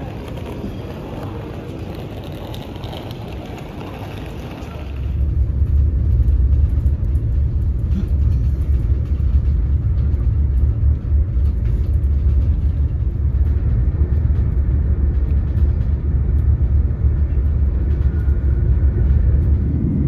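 About five seconds of busy station-hall ambience, then a sudden change to the steady low rumble of a passenger train running, heard from inside the carriage.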